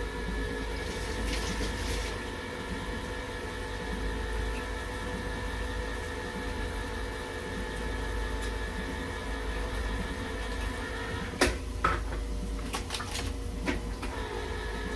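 Electric can opener motor running with a steady hum as it cuts around a can. It stops about eleven seconds in, followed by a few clicks and knocks of the can being handled, then starts again near the end.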